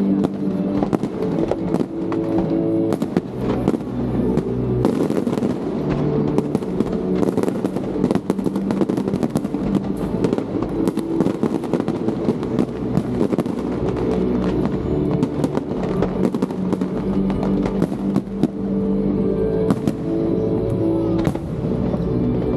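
Aerial fireworks bursting and crackling in a dense, continuous barrage of many sharp pops, with music playing underneath in long held notes.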